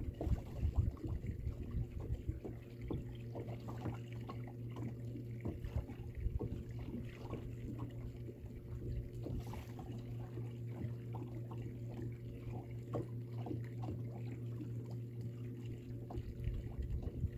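Water lapping and trickling against a small fishing boat's hull in many small irregular splashes, over a steady low hum from the boat's motor.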